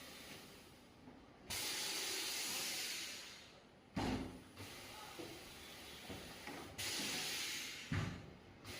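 Compressed air hissing in two sudden bursts, the first lasting about two seconds and tailing off, the second about a second long and cut off by a knock; another dull knock falls between them.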